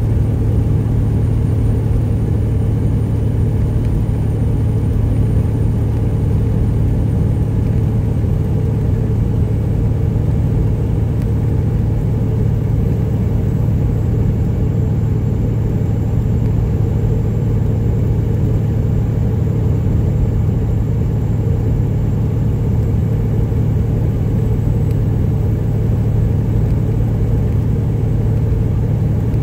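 Peterbilt 379's Detroit Series 60 inline-six diesel on straight pipes, running at a steady highway cruise: an even, unchanging low drone and hum, heard from inside the cab along with road noise.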